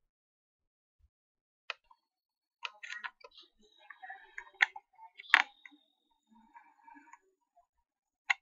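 Sharp computer mouse clicks, a handful spread over several seconds, the loudest a little past the middle, with quieter scratchy handling sounds between them. The first second and a half is silent.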